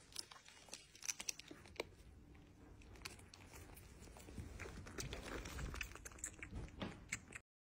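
Kitten suckling milk from a small feeding bottle: faint, irregular smacking and clicking.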